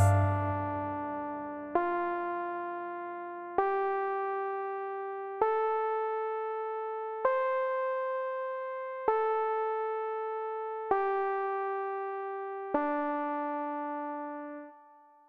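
Background music: slow, sparse keyboard notes, one about every two seconds, each struck and left to ring and fade. The notes climb step by step and then fall back, and the last one fades out just before the end.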